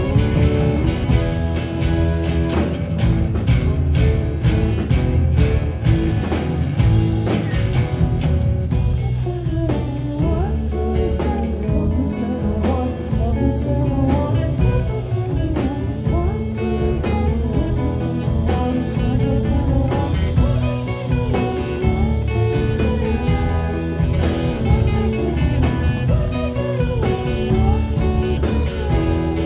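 Live rock band playing: electric guitars, bass guitar and drum kit, with a melody line bending in pitch over the band from about nine seconds in.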